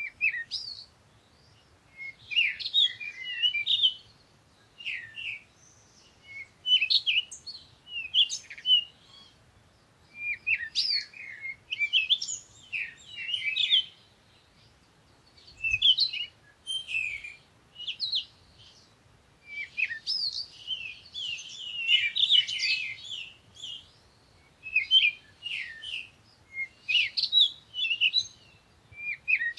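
Small songbirds chirping and twittering in varied high-pitched phrases that come every second or two, with short pauses between.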